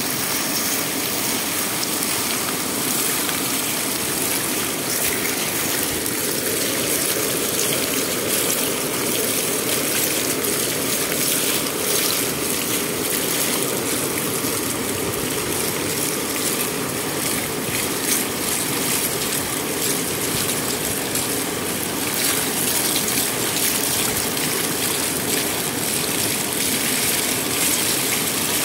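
Water pouring steadily over the edge of a low concrete weir and rushing into the churning pool below.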